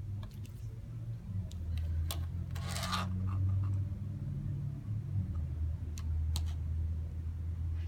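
Dromida Vista quadcopter's motors and propellers running with a low hum that swells and eases, with a few sharp clicks and a short rattle about three seconds in. The owner blames the noise on a prop shaft damaged when the drone hit a wall.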